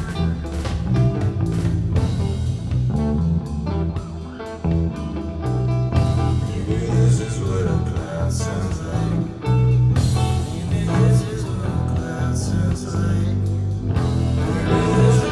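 Background music: a guitar-led rock and blues track with a steady beat.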